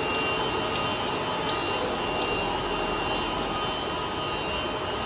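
Industrial machinery running steadily, a constant high-pitched whine over an even mechanical hiss, with a few faint ticks.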